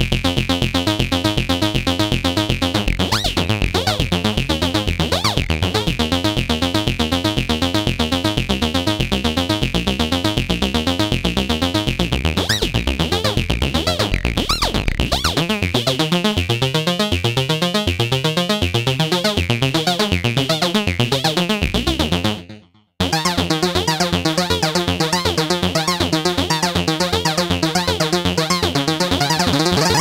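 Cherry Audio Chroma software synthesizer playing an arpeggiated preset: a fast, steady stream of repeating synth notes. The pattern breaks off for a moment about three-quarters through, then resumes with a different figure.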